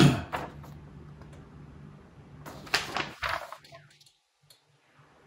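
Large paper airplane template sheets rustling as they are handled, with a loud rustle right at the start and another about three seconds in.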